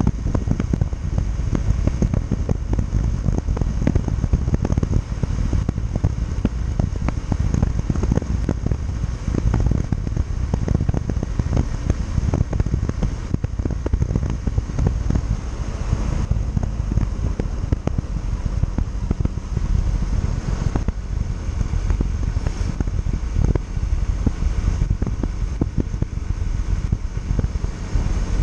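Wind buffeting and crackling on the microphone of a moving Yamaha Factor 150 motorcycle, a steady heavy rumble with road and engine noise underneath.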